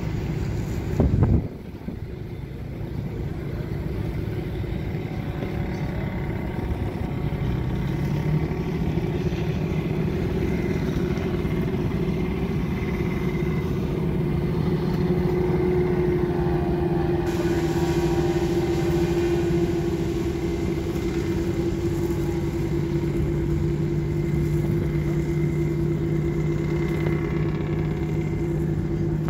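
A motor engine running steadily with a constant droning hum. A brief loud bump comes about a second in.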